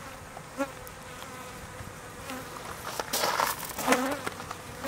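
Africanized honeybees buzzing around a piece of honeycomb as they are brushed off it, with a few brief brushing rustles about three seconds in.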